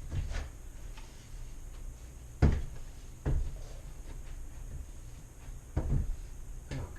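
Wooden knocks and bumps, about five, as glued box-joint boards of a wooden nuc box are fitted and pressed together; the loudest comes about two and a half seconds in.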